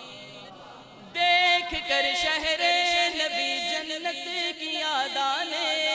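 A male voice singing a naat unaccompanied into a microphone, holding long, wavering, ornamented notes. It comes in loudly about a second in, after a quieter fading tail of the previous phrase.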